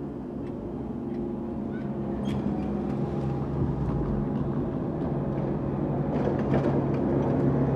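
Level crossing barrier mechanism running as the booms are raised: a steady mechanical hum, presumably the hydraulic pump that lifts them, growing somewhat louder toward the end.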